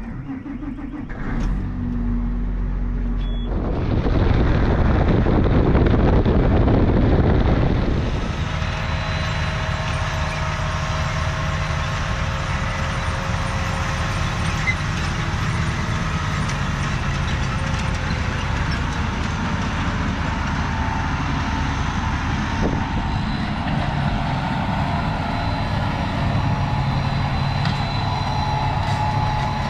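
A vehicle engine running, getting louder about four seconds in and working hard for a few seconds before settling to a steady run.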